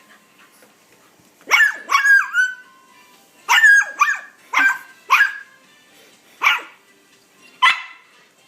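Puggle puppy barking: about eight sharp barks in uneven bunches, beginning about a second and a half in, one trailing off into a short falling whine.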